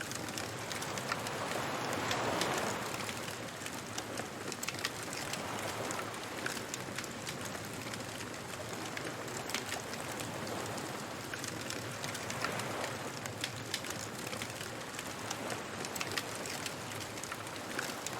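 Beach bonfire ambience: a wood fire crackling and popping in frequent small snaps, over waves washing in. The surf swells up about two seconds in, again around the middle, and near the end.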